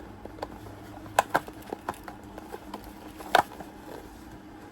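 Handling of a fitted box and its insert: scattered small clicks and knocks as items are pressed back into place. The loudest knock comes about three and a half seconds in.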